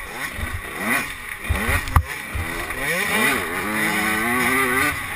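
85cc two-stroke motocross bike engine revving hard, its pitch repeatedly climbing and dropping as it accelerates and shifts, with wind rushing over a helmet-mounted microphone. A sharp knock about two seconds in.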